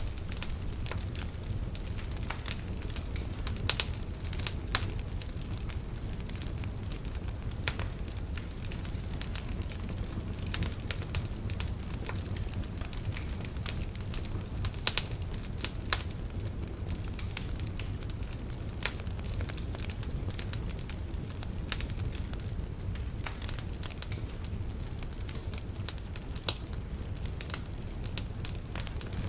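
Wood fire burning in a fireplace: a low steady rumble of the flames with frequent irregular crackles and pops, a few of them sharper and louder.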